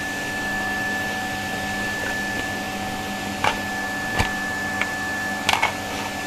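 Vacuum cleaner running steadily with a high whine over its motor noise. A few short clicks or knocks are heard in the second half, likely the nozzle or attachment bumping.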